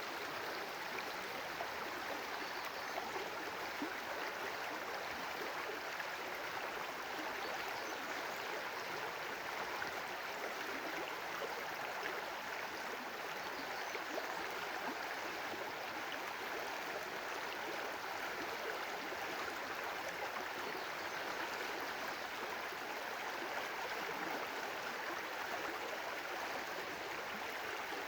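Water of a stream or brook flowing and splashing steadily, an even rushing hiss without change.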